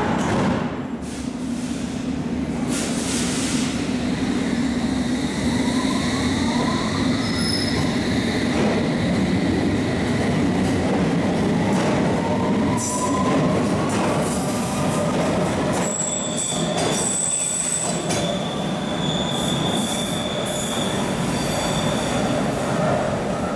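London Underground S stock train pulling away from the platform, a steady rumble of wheels on rail under faint rising whines as it gathers speed. In the second half come high, steady tones of wheels squealing on the rails.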